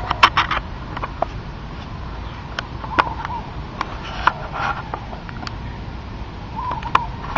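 A dog chewing a raw turkey carcass: wet tearing of meat and sharp crunches of bone, the loudest cluster just after the start and single cracks at about three seconds, four seconds and near the end.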